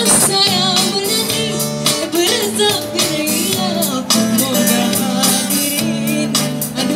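A woman singing a Malay song into a handheld microphone through a PA, with guitar accompaniment, holding notes with a wavering vibrato over a steady low backing.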